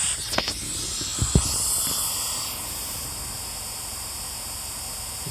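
Steady hiss with a few soft clicks, about half a second and a second and a half in; the high part of the hiss fades after about two and a half seconds.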